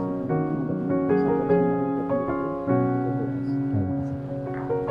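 Background piano music: a steady run of sustained notes and chords that change every half second or so.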